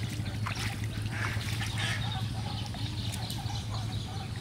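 Pond water splashing and trickling as a man wades waist-deep and works his hands through the water, with a few short clicks, over a steady low hum.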